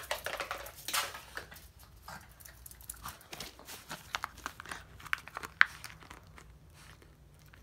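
Dog chewing and mouthing a plastic toy ball: an irregular scatter of small clicks and crinkly crunches, busier in the first second or two.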